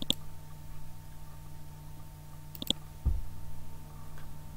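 Computer mouse clicking: one sharp click near the start and a quick double click about two and a half seconds in, followed by a dull low thump, over a faint steady electrical hum.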